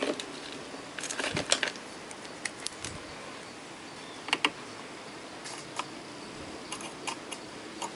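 Scattered light clicks and taps of multimeter probes and hands working on a powered active speaker's amplifier boards, over a steady faint hiss.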